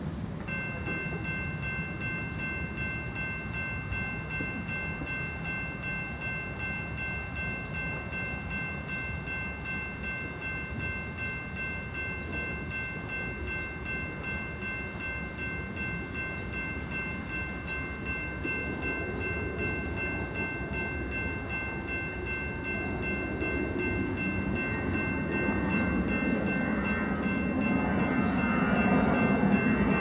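General Signals Type II electronic railroad crossing bell sounding, a steady ringing tone made of several fixed pitches that starts about half a second in. A low noise builds up underneath in the last few seconds.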